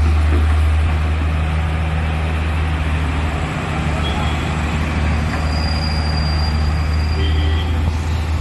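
Heavy diesel engine of a loading machine or dump truck running steadily, a deep constant hum with no change in pace.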